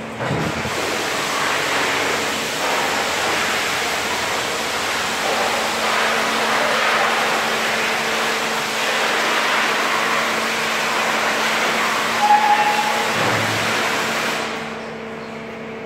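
Risco RS 450 paddle meat mixer's powered lid mechanism swinging the lid down shut: a steady rushing hiss over a constant machine hum. A brief squeak and a low knock come about twelve to thirteen seconds in, and the hiss stops as the lid closes near the end.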